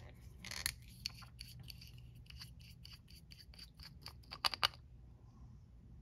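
Small scratches, scrapes and clicks of a nail polish bottle and a fine nail-art brush being handled, a few a second, with two louder clicks about four and a half seconds in before it goes quiet.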